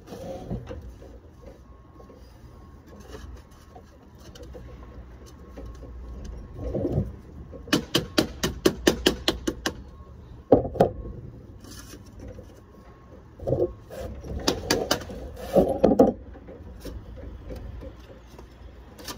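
Two runs of quick light taps, about six a second, with duller knocks between them: a hand tool working code 5 lead sheet, dressing the capping's front edge back against a plate.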